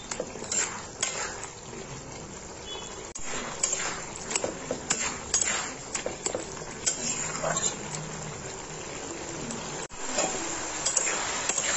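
A spatula stirring and scraping vegetables in a metal kadai, with irregular scrapes and knocks over the low sizzle of bottle gourd simmering in its own liquid.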